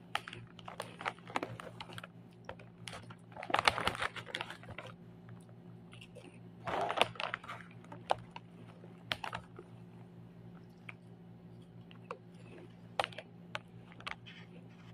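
A plastic potato-chip bag being handled and crinkled, with irregular crackles and clicks and two louder rustling bursts about 4 and 7 seconds in.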